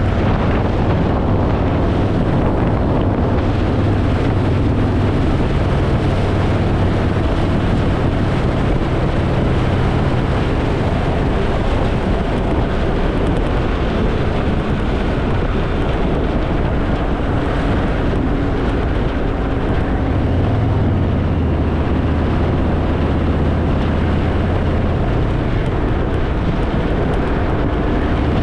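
Harley-Davidson Fat Boy's air-cooled V-twin engine running steadily under way, with wind rushing over the microphone. The engine's low note shifts in pitch a couple of times.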